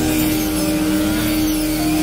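Rice harvesting machine's engine running steadily under load, with a constant hum and a rough low rumble.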